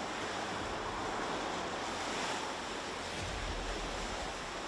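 Rough sea surf breaking on rocks below a seawall: a steady rushing of waves, with a deeper surge about three seconds in.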